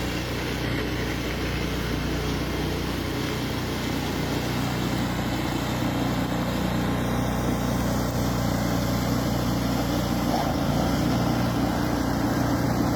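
An engine running steadily, with a constant low hum under a noisy rush, growing slightly louder toward the end.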